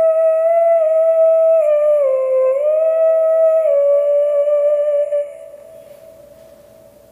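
Wordless hummed vocal melody holding long notes: the pitch dips lower about two seconds in, slides back up, steps down again, and the voice stops about five seconds in, leaving a faint steady note that fades away.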